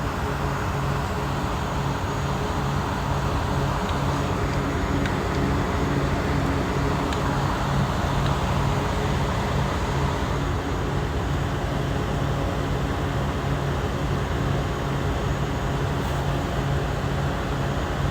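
Steady low mechanical hum of a running machine, even in level throughout.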